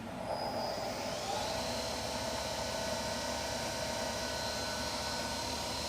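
Milltronics VM-16 CNC vertical machining center's spindle running up to 2,500 RPM: a whine that rises over the first second and a half, then holds steady with the machine's even running hum.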